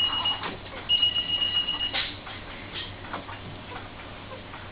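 Electronic beeper giving a high, steady single-pitch tone: a beep that cuts off just after the start, then another lasting about a second, starting about a second in. Faint clicks and rustling underneath.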